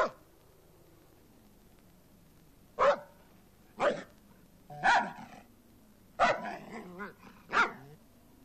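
German shepherd barking loudly, six short barks about a second apart, one of them drawn out and rougher.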